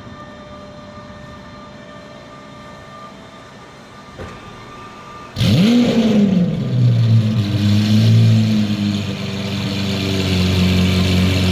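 Lamborghini Aventador SV's 6.5-litre V12 starting up about five seconds in: a sudden loud rev flare that rises sharply and falls back, then settles into a steady, loud idle.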